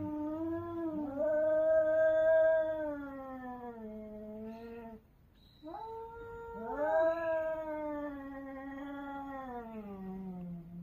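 Two domestic cats in a territorial standoff, caterwauling: long, drawn-out, wavering yowls that at times overlap. The yowling breaks off briefly about five seconds in, then starts again and carries on.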